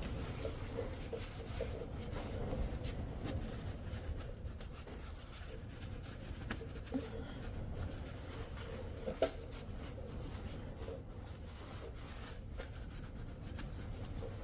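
Brake rotor being rubbed and scrubbed clean by hand: a steady rubbing with a few light knocks, one sharper knock about nine seconds in.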